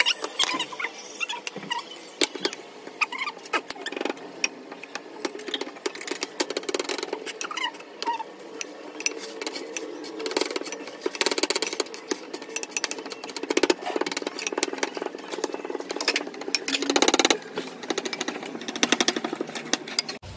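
Wooden pestle pounding and mashing boiled potato in a glass bowl: a quick, uneven run of knocks.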